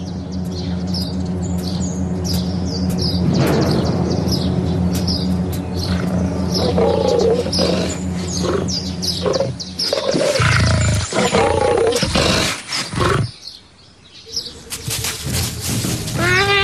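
Big cat growling and roaring, with rows of quick, high falling bird chirps over the top. The sound drops to a short lull near the end.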